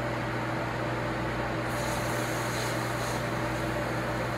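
Steady hum of a kitchen appliance fan, with a few low held tones, and a faint hiss for a second or so in the middle.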